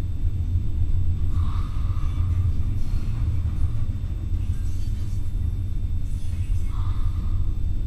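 A steady low rumble, with two short, fainter higher sounds about a second and a half in and near the end.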